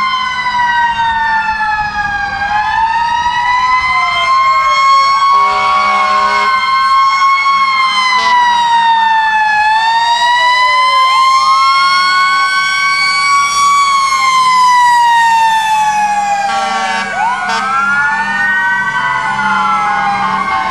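Several fire truck sirens wailing at once, their pitches slowly rising and falling and crossing over each other as the trucks pass, with a short horn blast about five seconds in.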